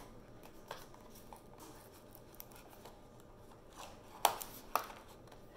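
Small cardboard battery box being handled and opened, with faint rubbing and sliding of the paperboard. Two sharp clicks come about four seconds in, half a second apart.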